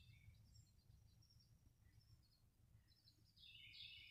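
Faint, high chirps of small birds, with a quicker run of chirps near the end, over a steady low background rumble.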